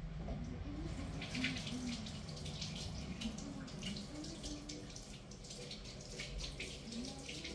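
Kitchen tap running into a sink, with irregular splashing as green onions are rinsed under the water.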